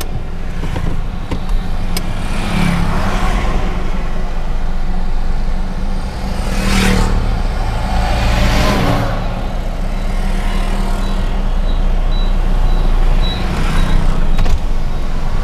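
Road traffic passing close by a stationary car: a truck and motorbikes go by with swells of noise, the loudest about 7 and 9 seconds in, over a steady low engine hum.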